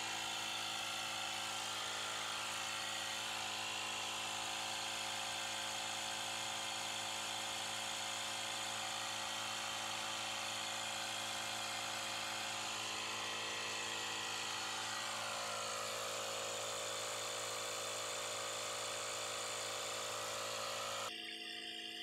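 Portable car air compressor (tyre inflator) running steadily, its small motor giving an even buzzing hum as it pumps air into an under-inflated car tyre. About a second before the end the sound drops a little in level and changes.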